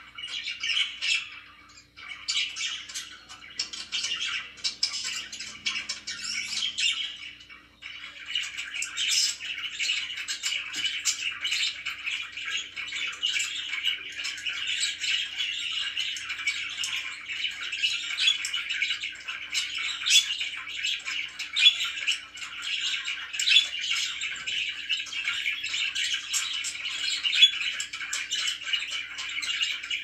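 Pet budgerigars chirping and chattering in a busy, continuous stream of short calls. There are brief lulls about two seconds in and just before eight seconds, after which the chatter is fuller.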